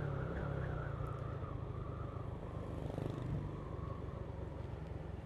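Low, steady engine hum and road noise of a vehicle cruising along a road.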